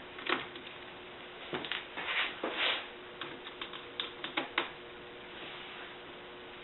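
Screwdriver and fingers working small screws out of a laptop's display bracket: an irregular run of light clicks and taps with a few short scrapes, going quiet about two-thirds of the way through.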